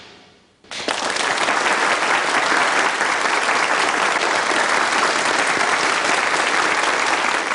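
Studio audience applauding: the clapping starts suddenly about a second in, as a musical sting fades out, and holds steady and loud.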